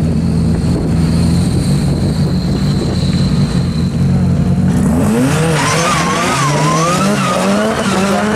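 Ford Sierra Sapphire RS Cosworth rally car's turbocharged four-cylinder engine idling steadily, then revving hard about five seconds in as the car pulls away, its note climbing in repeated rising sweeps.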